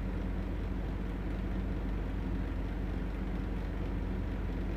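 A steady low hum with no distinct clicks or changes, like a fan or motor drone.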